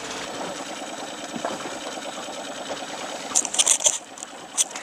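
A fishing reel winding in line on a hooked fish, a fast, even mechanical whirring, with a few sharp high clicks from about three and a half seconds in.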